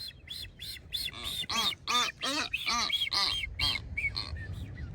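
Blue-footed boobies giving courtship calls: a rapid series of short calls, about three or four a second, high whistles mixed with lower honks, loudest in the middle.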